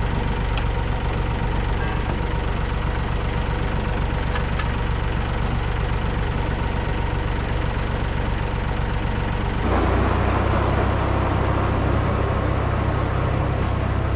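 Ford 1710 tractor's three-cylinder diesel engine idling steadily, with a couple of light clicks in the first few seconds. About ten seconds in the sound changes abruptly to the tractor driving and mowing: the engine louder, with the steady noise of the mower deck added.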